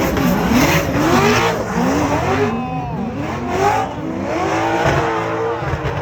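Drift cars' engines revving hard, the pitch sweeping up and down again and again as they are worked on and off the throttle, with tyre squeal underneath.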